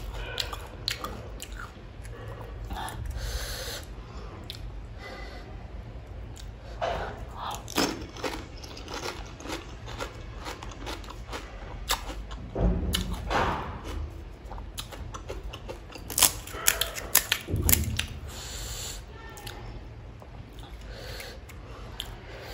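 Close-up eating of pani puri: crisp, hollow puri shells crunching and wet chewing, as a stream of small crackles and clicks. Louder bites come in bunches around 13 seconds in and again around 16 to 18 seconds in.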